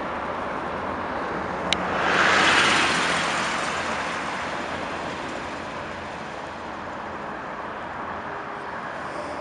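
A passenger train's rolling noise with a low hum, fading as a road vehicle swishes past close by about two seconds in; a sharp click comes just before. Then steady, quieter road traffic noise.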